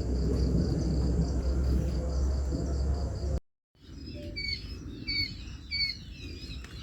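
A low rumbling noise with an insect trilling in steady pulses behind it. After a brief cut, a bird calls a short, slurred chirp over and over, roughly twice a second.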